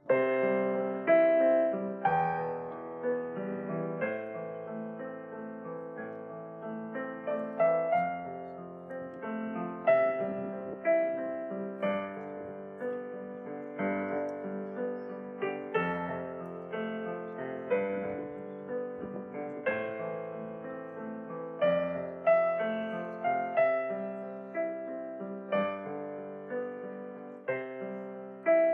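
Solo piano music, a gentle piece of struck notes, starting suddenly.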